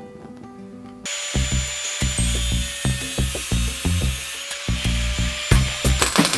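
Angle grinder with a cut-off disc cutting through metal plate, a loud steady whine over a hiss, starting about a second in. Near the end a MIG welder crackles. Background music with a steady beat plays throughout.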